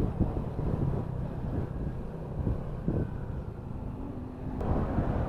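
Wind buffeting and road and engine rumble picked up by a helmet-mounted camera microphone while riding a motorcycle through traffic. The noise grows fuller and brighter abruptly about four and a half seconds in.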